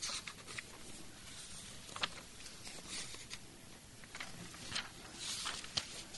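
Faint rustling with scattered soft clicks over a low hiss, a few at a time and irregular, with a slightly longer rustle a little past the five-second mark.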